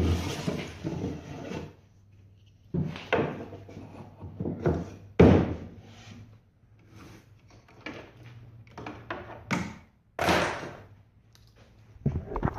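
A series of knocks, thuds and scraping handling sounds, in clusters a second or two apart, with no saw motor running.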